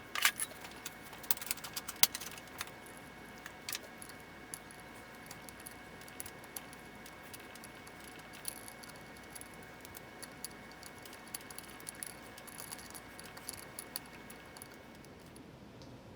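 Small metallic clicks and light rattles from a 1/4-20 steel screw and aluminium plates being handled, the screw turned in and out of a freshly tapped hole by hand. The clicks come thickly in the first few seconds, then sparser.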